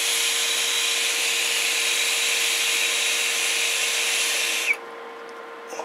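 A steady, loud hiss that starts suddenly and cuts off with a click a little under five seconds in, over a faint steady hum.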